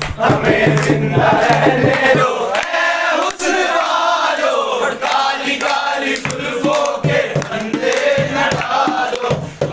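A group of men singing a folk song together in chorus, with hand-beaten dholki drum and clapping; the drum drops out for a few seconds in the middle.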